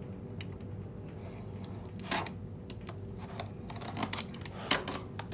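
Packaging of a 3D printer filament spool being handled by hand: scattered small clicks and crinkles, with two louder crackles about two seconds in and near the end, over a steady low hum.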